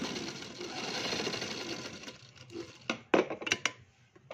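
Domestic straight-stitch sewing machine running as it stitches a fold of a shirt collar closed, then slowing and stopping about two seconds in. A few sharp clicks follow near the end.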